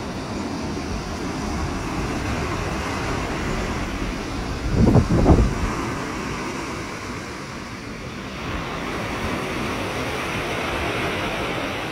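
Wind rumbling on the microphone over the steady hiss of surf breaking on the beach, with a strong gust buffeting the microphone about five seconds in.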